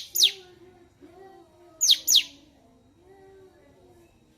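Cucak cungkok singing: loud, sharp down-slurred whistles in quick pairs, one pair at the start and another about two seconds in, over a fainter low wavering sound.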